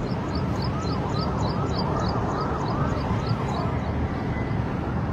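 Steady rumble of vehicle and road noise. Over it, for about three seconds, a rising-and-falling call repeats about four times a second.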